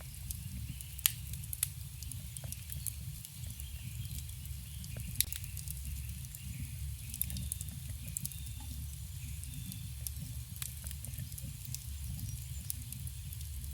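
Campfire burning: wood crackling with irregular sharp pops and snaps, the loudest about a second in and again about five seconds in, over a steady low rumble.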